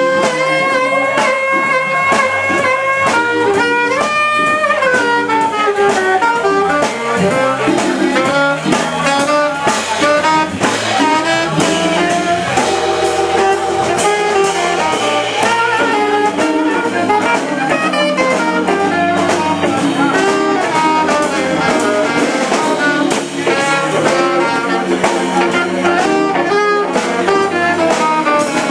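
Live jazz band playing: saxophone lead over guitar, electric keyboard and drum kit. The saxophone holds long notes near the start and bends down in pitch about four seconds in.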